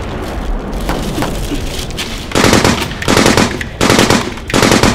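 Machine-gun fire sound effect: four rapid bursts of about half a second each, starting about two seconds in.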